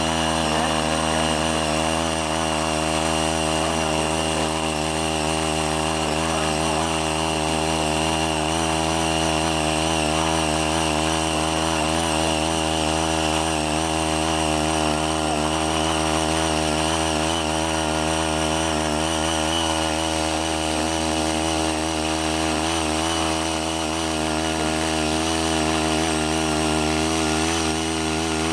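CHING YEE CY80 mini tiller's small engine running steadily under load as its rotary tines churn through the soil, its note wavering slightly as it works.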